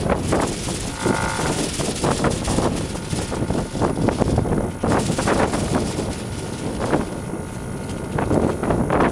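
Wind buffeting the microphone in gusts, a loud rumbling rush that swells and eases. About a second in, a short high tone with several pitches sounds once.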